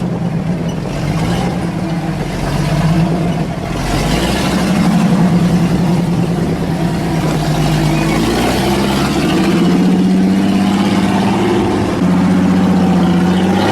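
Off-road Jeep's engine running, its pitch stepping up and down as the throttle changes.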